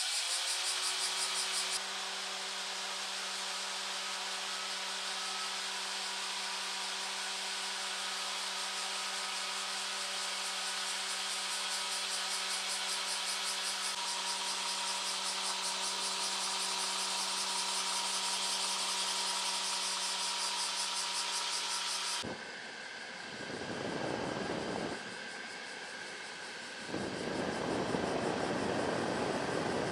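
Car air conditioning running: a steady motor hum with a held tone over a strong airy hiss. About two-thirds of the way through this cuts off sharply and gives way to a few swelling and fading whooshes.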